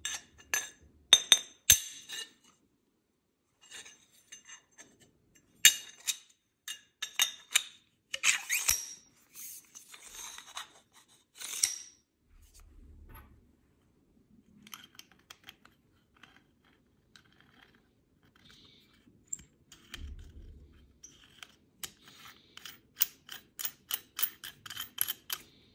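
Metal solvent-trap tubes handled, clinking and scraping against each other, with sharp clinks near the start and scraping a third of the way in. Near the end, a quick run of light clicks, about five a second.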